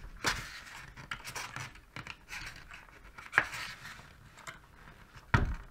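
Small screwdriver scraping and prying at a plastic clip on an RS41 radiosonde's casing, with scattered clicks, a sharp click about three seconds in and a louder thump near the end.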